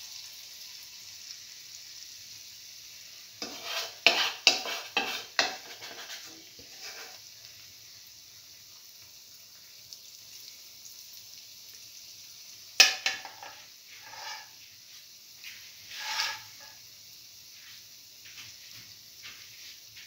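Garlic chickpea-flour batter frying in hot oil in a cavity pan, a steady sizzle with clusters of louder crackling bursts about four to six seconds in and again near thirteen and sixteen seconds.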